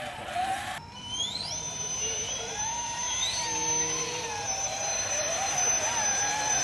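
Electric motors and geartrains of RC crawler trucks whining under throttle: a high whine rises in pitch about a second in and then holds steady, with a lower whine wavering up and down beneath it as the trucks crawl.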